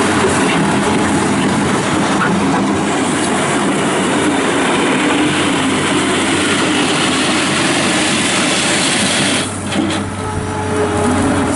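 1998 New Holland LX665 skid steer loader's turbo diesel engine running hard as the machine is driven around, loud and steady with a clattery rattle, easing off briefly near the end.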